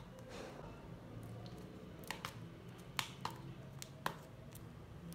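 Fingers picking at the plastic shrink wrap on a DVD case: faint crinkling with a few sharp plastic clicks, about six spread over the last three seconds.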